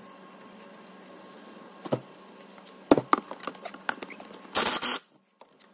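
A few metallic clicks and knocks as the crankshaft pulley bolt and socket are set in place. Then, about four and a half seconds in, a short half-second buzz of a cordless impact driver tightening the crank pulley bolt.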